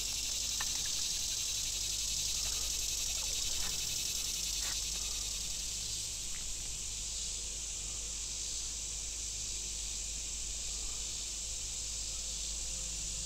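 Steady high-pitched drone of a summer insect chorus, with a few faint ticks.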